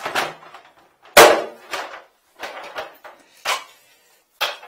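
Plumbing gear being packed into a hard plastic tool case: a coiled cable and corrugated hose knock and clatter against the case in a run of sharp, irregular knocks, the loudest about a second in.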